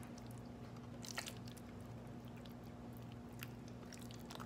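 Faint, wet squishing of a hand rubbing ketchup over raw pork spare ribs, with a few small clicks, over a steady low hum.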